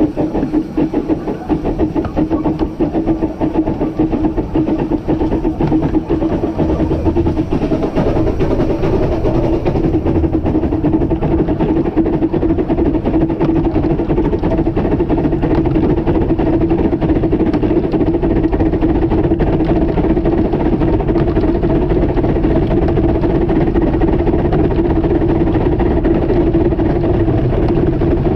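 15-inch-gauge steam locomotive River Irt running along the line, heard from the footplate as a continuous loud running noise with a steady hum through it.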